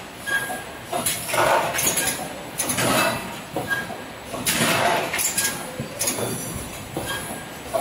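Automatic case packer running, with glass jars clinking along its conveyor. A rush of noise repeats about every one and a half seconds over the steady running sound as the machine cycles.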